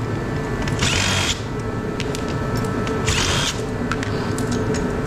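A power drill run in two short bursts, about a second in and again about three seconds in, each spinning up quickly, most likely driving screws out of aluminum LED light panels being taken apart for scrap. Under it runs a steady hum, with a few small clicks.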